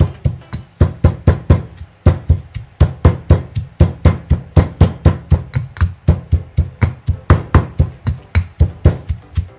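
Stone pestle pounding chillies, onion and garlic in a granite mortar, in a quick steady rhythm of about four to five dull strikes a second.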